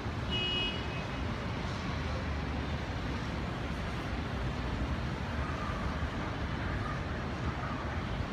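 Steady hum of city traffic heard from high above the streets, a constant low rumble. A brief high-pitched tone sounds about half a second in.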